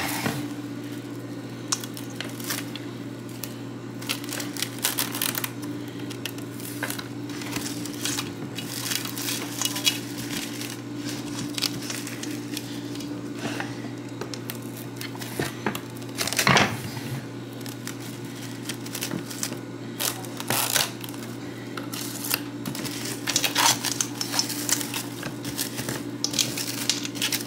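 Plastic cling wrap being pulled, torn and crinkled as it is pressed over a bowl, with irregular rustles and clicks, one of the sharpest about halfway through, over a steady low hum.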